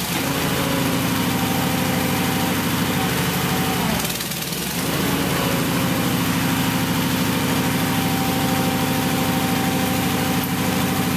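Engine powering a homemade backhoe's hydraulics, running steadily throughout; its pitch and level dip briefly about four seconds in, then recover.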